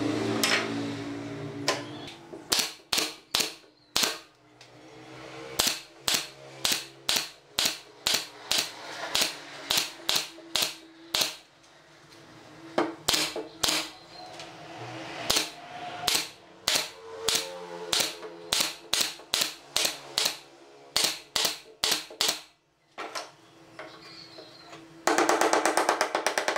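Pneumatic brad nailer firing repeatedly, one sharp shot every half second or so, driving brads through pine slats into a curved chair arm. Near the end, a run of quick hammer taps on the wood.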